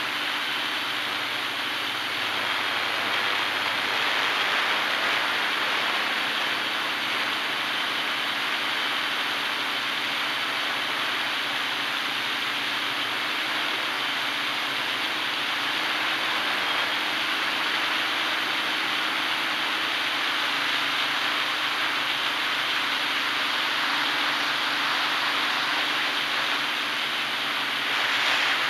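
Hexacopter's electric motors and propellers running steadily in flight, heard from a camera mounted on the frame: an even rushing hum with faint steady tones underneath.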